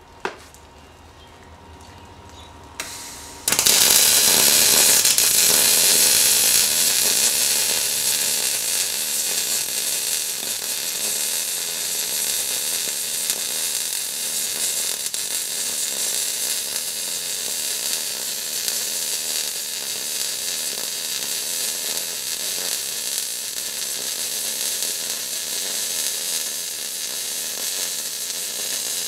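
MIG welder arc crackling and sizzling steadily as a bead is laid on a wagon axle. It strikes suddenly about three and a half seconds in, after a couple of sharp clicks.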